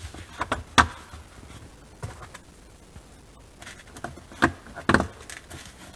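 Small plastic push-in fasteners pressed down by hand to hold an insulator panel, making a series of short clicks and knocks. The loudest two come about four and a half and five seconds in.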